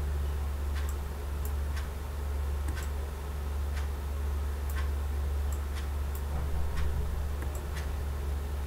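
Computer mouse clicking: about a dozen short, sharp clicks at irregular intervals, over a steady low hum.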